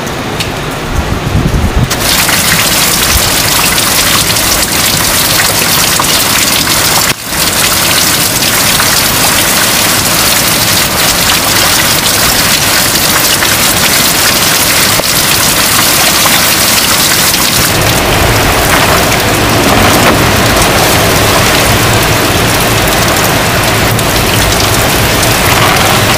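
Heavy rain pouring steadily, a dense hiss. The sound shifts abruptly a few times, and about two-thirds of the way through it turns fuller and deeper.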